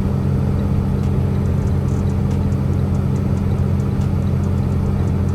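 Semi-truck cab at highway speed: the engine and road noise make a steady low drone, with faint scattered ticks on top.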